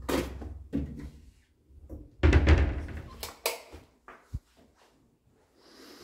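A built-in cupboard being handled and shut: light knocks at first, a loud thunk with a short rattle about two seconds in, then a few small clicks.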